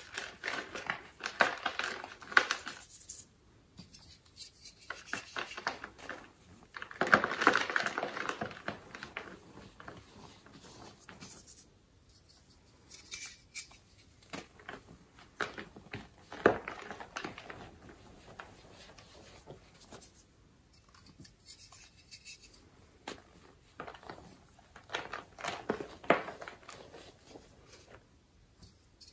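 Pressed blocks of gym chalk crushed and crumbled in a hand: dry crunching and crackling in several bursts, the loudest about seven to eight seconds in, with softer rubbing of chalk powder between.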